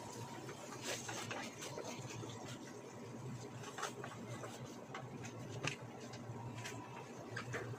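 Food sizzling in a frying pan with scattered pops and crackles, and a wooden spatula knocking and scraping against the pan as it is stirred, over a low steady hum.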